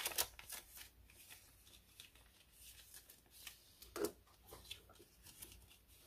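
Faint rustling and soft ticks of paper banknotes being handled and slipped into a clear plastic zipper envelope in a ring binder, with a slightly louder rustle about four seconds in.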